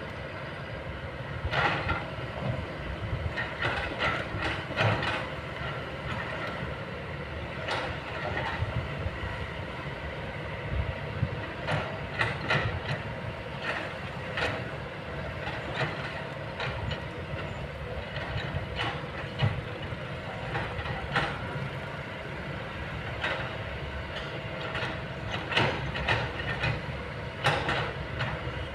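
Kobelco long-boom excavator running steadily, with a constant drone and whine and sharp metallic clanks and squeals every second or few.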